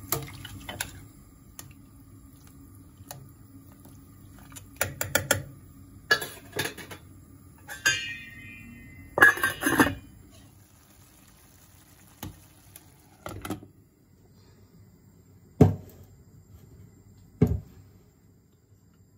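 A metal spoon clinking and scraping against a stainless steel pot while stirring a stew, then the pot's stainless steel lid set on with a brief metallic ring and a clatter about halfway through. Two dull thumps near the end.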